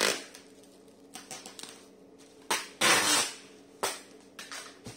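Plastic parcel wrapping and bubble wrap crinkling as the package is handled, with two loud rasping bursts about two and a half to three seconds in and a few small clicks.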